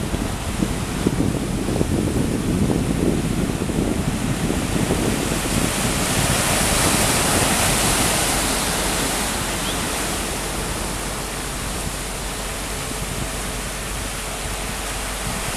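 Wind blowing across the microphone over a steady rush of sea noise. A gusty low rumble fills the first half, and a hiss swells around the middle and then eases.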